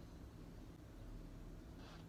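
Quiet room hum, then near the end one faint scratch of an S Pen stylus stroking across the Samsung Galaxy Tab S6 Lite's glass screen.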